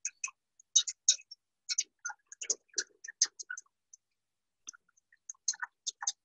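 A wire whisk clicking and tapping against the sides of a stainless steel saucepan in quick, irregular strokes, whisking milk and agar to work air in as it heats toward a boil.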